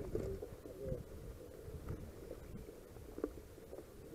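Mountain bike rolling over a grass course: a low, steady rumble of the tyres and frame, with a single sharp click about three seconds in.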